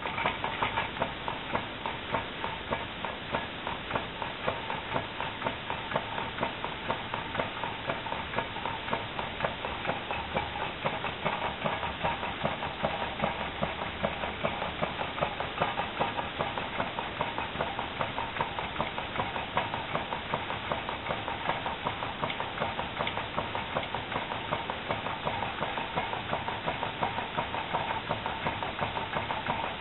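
Homemade soda-can Stirling engine running, its wire crankshaft and linkages clicking rapidly and evenly with each turn of the flywheel. The clicking starts suddenly as the flywheel is set going and holds a steady pace.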